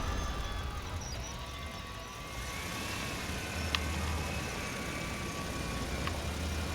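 Low, steady hum of a small motor with faint whining tones and a few light clicks, as music fades out at the start.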